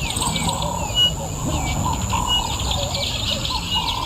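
A chorus of wild birds chirping, trilling and whistling in short, overlapping calls, over a steady high-pitched drone.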